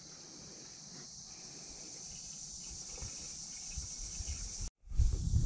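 Steady high chirring of crickets, with faint pouring as diesel runs from a jerry can into a mini excavator's fuel tank, slowly growing louder. The sound cuts out abruptly near the end.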